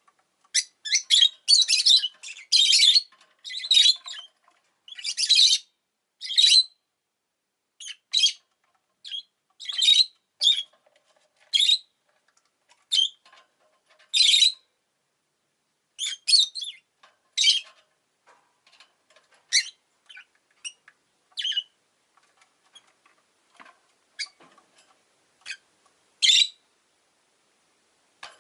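A rosy-faced lovebird chirping: short, sharp, high calls, coming in rapid runs at first and then singly or in pairs every second or so with gaps between.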